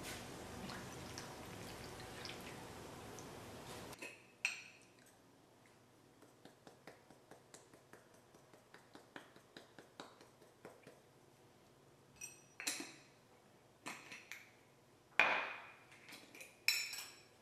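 Tomato sauce cooking in a stainless steel sauté pan: a steady sizzle for about four seconds, which cuts off, then small bubbling pops a few times a second as the sauce simmers, with a few louder clinks in the last few seconds.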